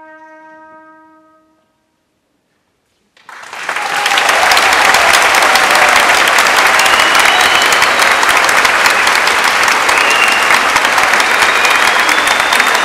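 A trumpet's final held note fades out about a second and a half in. After a short silence, a concert-hall audience suddenly breaks into loud, sustained applause, with a few high whistles on top.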